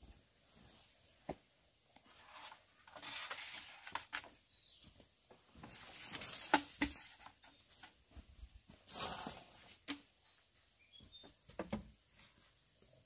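Rustling and swishing of handling work, several bouts about a second long, with scattered light knocks and clicks; a few faint high chirps partway through.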